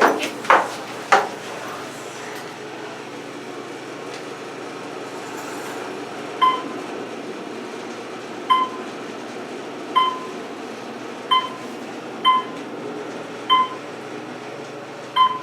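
Otis elevator car running between floors, with a steady hum. A few sharp clicks come near the start. From about six seconds in, a short electronic beep sounds about every one to two seconds, seven in all, the car's floor-passing signal.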